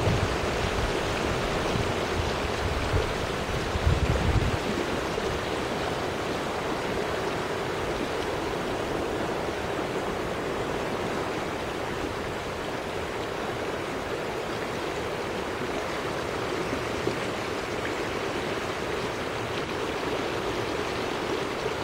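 Floodwater running through a flooded hardwood bottom, a steady rushing wash. Low wind rumble on the microphone in the first few seconds, stopping about four and a half seconds in.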